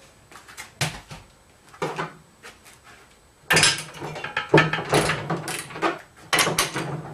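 A few light knocks, then from about three and a half seconds in a dense run of metallic clicking and rattling: a ratchet torque wrench being worked on the roller frame's corner bolts to loosen them.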